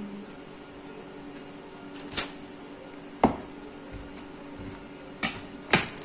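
Kitchen knife chopping through cooked sausages onto a wooden cutting board: four sharp knocks, unevenly spaced, over a faint steady hum.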